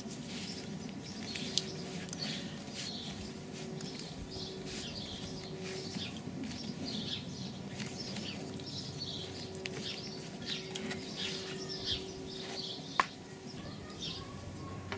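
Soft scraping of a knife spreading peanut butter over flour tortillas on a cutting board, with small birds chirping in the background and a faint steady hum.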